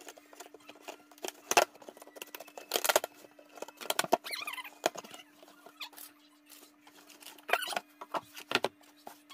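Cardboard shipping box being opened and unpacked by hand: scraping and rustling of cardboard with several sharp knocks, loudest about a second and a half in, around three seconds, and near the end, over a steady faint hum.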